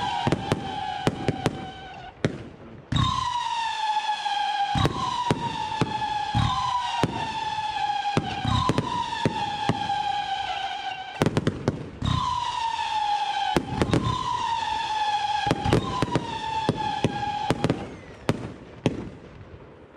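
Consumer firework battery firing whistling shots one after another: about eight falling whistles, each a second or two long, with sharp cracks and pops between them, dying away near the end.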